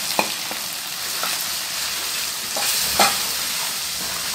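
Hot oil sizzling in a steel kadhai as powdered spices, curry leaves and dried red chillies fry while being stirred with a wooden spoon. A few sharp clicks, the loudest about three seconds in.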